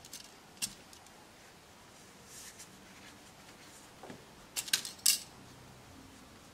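Hands pinning layers of cotton fabric together with straight pins on a paper-covered table: light handling noise with a couple of short clicks near the start, then a quick cluster of sharp clicks about four and a half to five seconds in.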